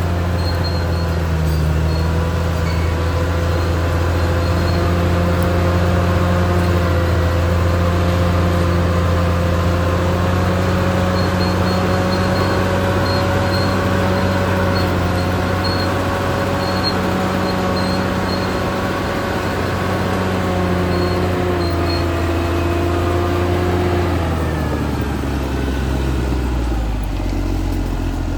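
Caterpillar D6R XL bulldozer's diesel engine running steadily, its pitch dropping near the end as the engine slows.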